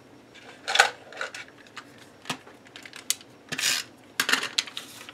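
A sheet of puffy heart stickers and a clear plastic bag being handled on a cutting mat: short rustles and crinkles of plastic and paper, with a few sharp taps. A louder rustle comes about a second in, and a cluster of them near the end.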